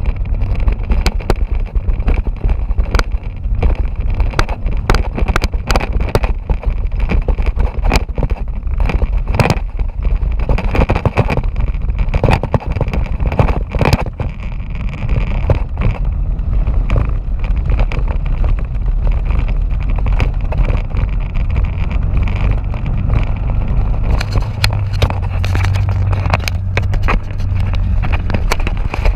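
Small motorbike engine running steadily while riding over a rough dirt track, with frequent knocks and rattles from the jolts.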